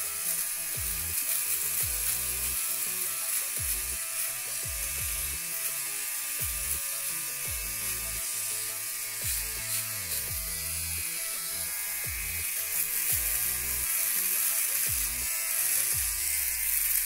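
Philips OneBlade Pro electric trimmer buzzing steadily as it is run over dry stubble on the face and neck, under background music with a deep, pulsing bass.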